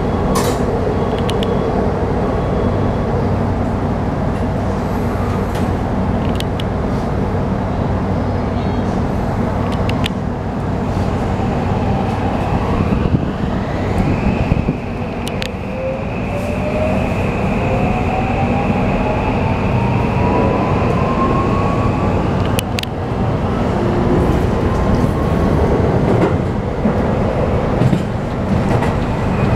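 Cabin of a Toei 5500 series electric train pulling away: steady running rumble, then a whine from its Mitsubishi hybrid SiC VVVF inverter and traction motors. A steady high tone sets in about halfway, and a second tone rises steadily in pitch as the train gathers speed.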